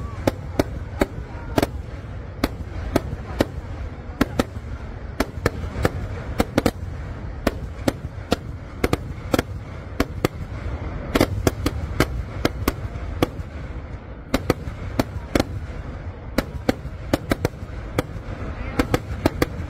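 Kerala temple-festival fireworks (vedikkettu): ground-launched aerial shells, the dynas, go off as a rapid, irregular string of loud bangs, about two or three a second with a brief lull midway, over a continuous low rumble.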